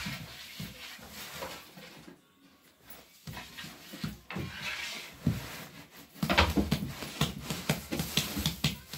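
Hands patting and slapping balls of bread dough on a floured surface: irregular soft thumps, sparse at first and coming faster and louder for the last few seconds.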